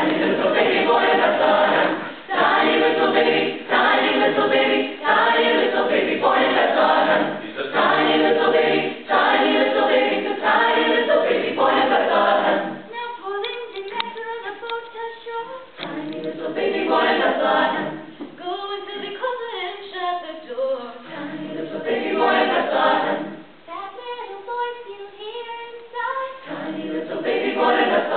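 A mixed high-school choir singing a cappella, with no instruments. The first half is loud full-choir chords in short phrases; then the singing drops to a softer passage that swells back to full chords a few times.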